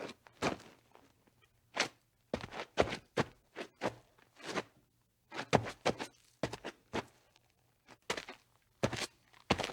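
Footsteps at a walking pace, each step a short separate thud, in runs broken by a few brief pauses.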